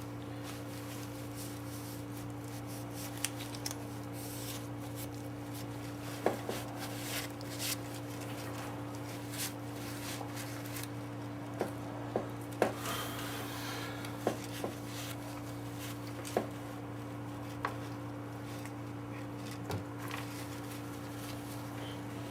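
Scattered light taps and clicks of tools and engine parts being handled during valve lapping, with a brief scraping rub about thirteen seconds in, over a steady low hum.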